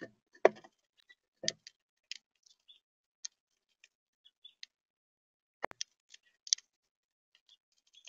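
Irregular sharp taps and clicks on a bird feeder, as a bird pecks at seed close to the microphone. There are a few taps a second at first, then a loud double click a little past the middle.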